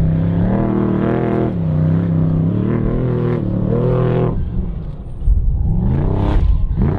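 Trophy truck's V8 engine revving hard under racing throttle, its pitch climbing and falling repeatedly. About four and a half seconds in the throttle eases off briefly, then the engine revs up sharply again near the end.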